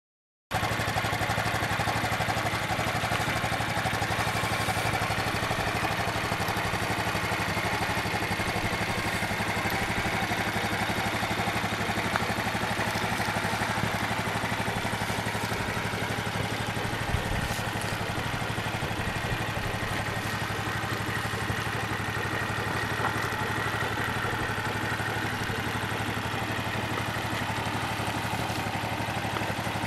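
Shineray XY250ST-3 quad's water-cooled 229 cc single-cylinder four-stroke engine idling steadily, with no revving.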